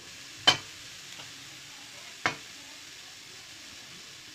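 Metal spoon knocking and scraping against a steel kadai as soft jaggery is spooned onto grated coconut: two sharp clicks about two seconds apart, over a faint steady hiss.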